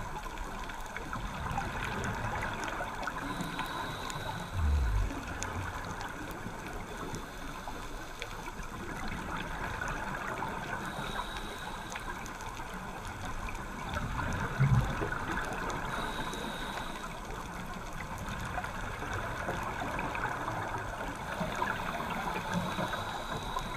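Underwater sound through a diving camera's housing: a steady watery hiss, broken twice by a low bubbling rumble from a scuba diver's exhaled regulator bubbles, about five and fifteen seconds in.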